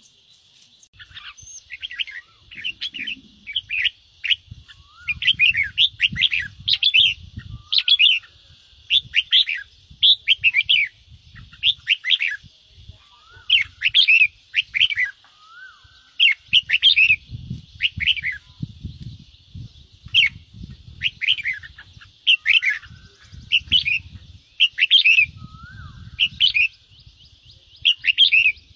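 Red-whiskered bulbul giving harsh, rapid 'ché' chatter calls in short repeated bursts, one or two a second, the agitated scolding calls used to provoke rival bulbuls. Dull low thumps come with many of the calls, over a steady high hiss.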